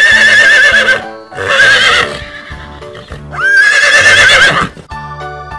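Horse neighing three times. Each is a loud whinny with a wavering pitch, the last starting with a rising sweep, over background music that carries on alone near the end.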